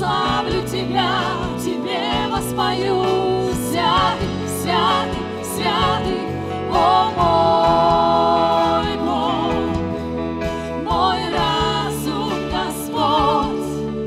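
Live Christian worship song in Russian: several voices singing with vibrato over keyboards, guitars, bass and percussion, holding one long note a little past the middle.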